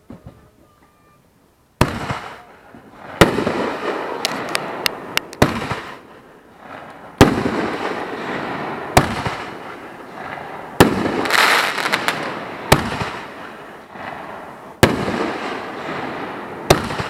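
Aerial fireworks going off, with nothing for the first two seconds. Then a sharp bang about every two seconds, each followed by crackling and hissing, with a quick run of small cracks after the second bang.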